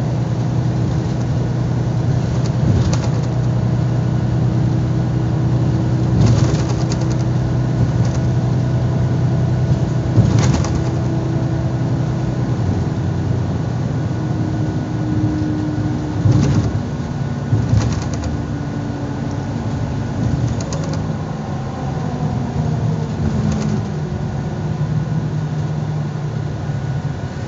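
Mercedes-Benz city bus heard from inside the passenger cabin: a steady engine and drivetrain hum under road noise, with a few short knocks and rattles from the bodywork. About halfway through, the hum's pitch starts sinking slowly as the bus slows.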